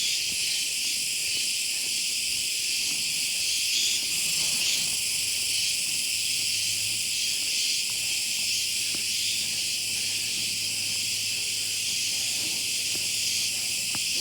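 A steady, unbroken chorus of insects (cicadas or crickets), dense and high-pitched, with no pauses.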